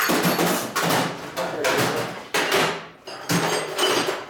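Steel hand tools clattering as a metal toolbox drawer is rummaged through and slid, in several rattling spells of about half a second each, with a short pause near the three-second mark.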